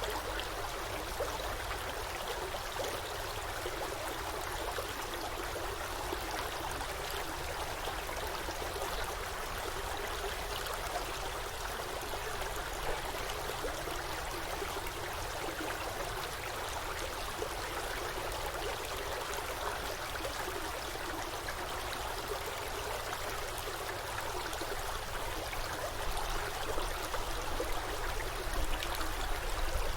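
Forest stream flowing, a steady rush and babble of running water.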